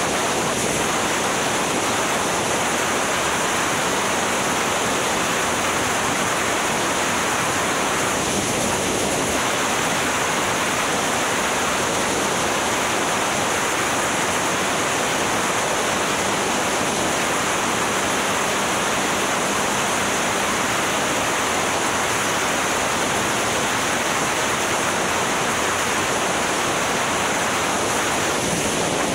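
Steady rush of wind on the microphone of a camera mounted on a moving motorbike, an even roar at road speed with no distinct engine note.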